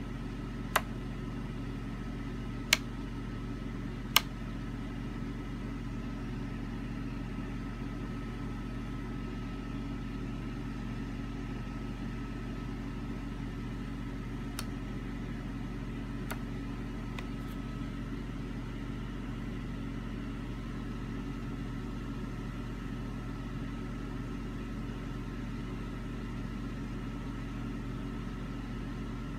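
Steady low mechanical hum with a faint high whine. It is broken by sharp clicks about a second in, near three and four seconds, and two or three more a little past the middle.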